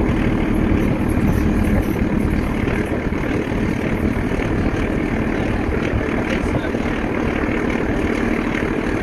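Steady drone of a British Rail Class 14 diesel-hydraulic locomotive's engine hauling the train, heard from an open carriage window along with the rumble of the moving train and wind rushing past.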